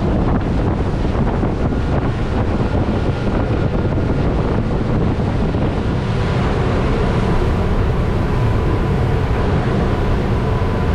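Wind buffeting the microphone as a twin-outboard boat runs at speed over open water, its engines and the rushing of the hull and wake making a loud, steady noise. A faint, steady high whine sits under it.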